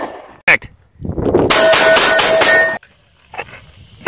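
A string of rapid pistol shots lasting about two seconds, with steel targets ringing as they are hit. A single sharp crack comes about half a second in.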